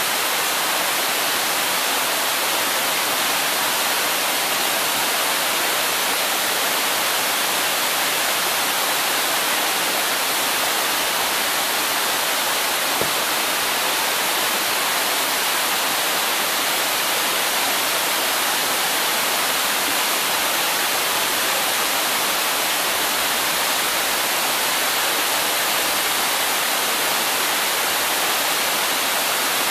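Crabtree Falls, a tall waterfall, pouring down a steep rock face: a steady, unchanging hissing rush of falling water with little low rumble.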